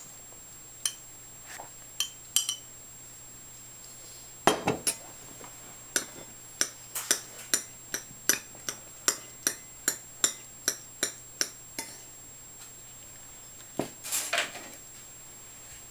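A metal spoon clinking and tapping against a glass bowl and a ceramic bowl as SpaghettiOs are spooned out: a few scattered clinks, a loud clatter about four and a half seconds in, then a run of quick taps, about two or three a second, and another clatter near the end.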